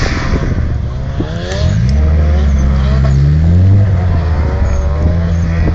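Drift car's engine revving hard. Its pitch climbs about a second in, holds high, and drops back just before four seconds in.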